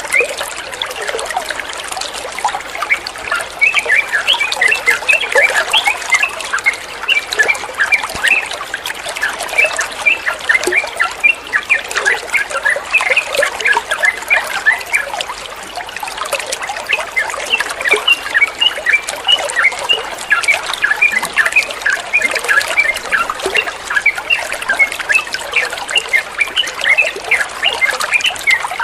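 Water trickling and gurgling without a break, with a dense run of short high blips mixed in.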